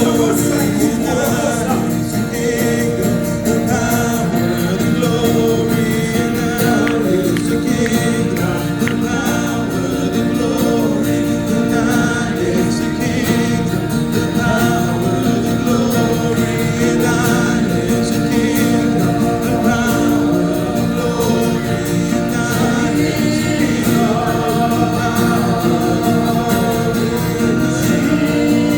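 Gospel worship song: voices singing together over instrumental accompaniment, steady throughout.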